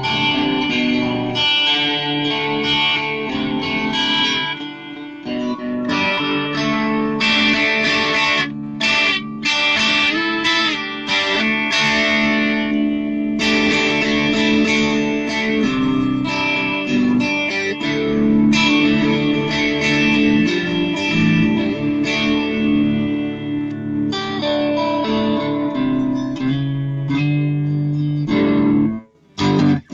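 Home-built solid ash electric guitar played through an amplifier with effects, mixing sustained chords and single notes. The playing breaks off briefly near the end.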